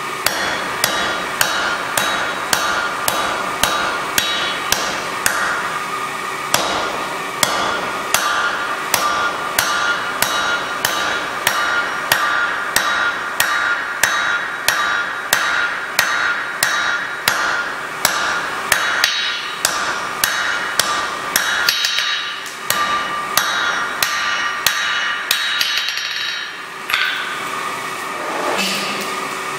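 Blacksmith's hand hammer forging a glowing steel bar on an anvil: a long, even run of sharp blows, about one and a half to two a second, that stops near the end. A steady hum runs underneath.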